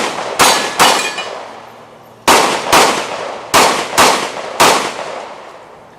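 Semi-automatic pistol firing seven shots: a pair, then, after a pause of about a second and a half, two more pairs and a single shot. Each shot is followed by a short reverberating tail.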